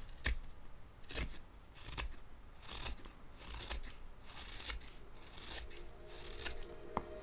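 Japanese carving knife (kogatana) paring paulownia wood, cutting along the grain to shave down a chamfered corner. It makes a series of short slicing cuts, about one a second, each coming as a chip comes away.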